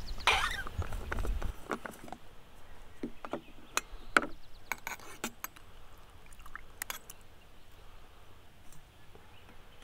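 Stainless steel food thermos being unscrewed and opened, with handling rustle in the first second or so, then scattered sharp metal clinks and taps as a spoon goes into the thermos-cooked pasta, fading toward the end.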